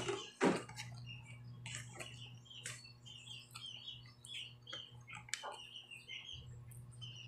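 Someone eating by hand, with soft chewing and mouth sounds and a sharp click about half a second in. Under it run a low steady hum and frequent short, high chirps.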